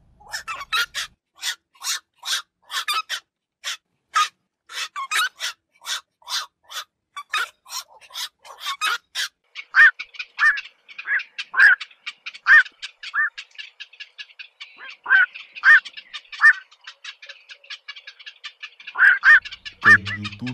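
Black-crowned night herons calling: a rapid run of short, sharp calls a few per second for the first half, then louder single croaks every half second to a second over a quicker background chatter of calls.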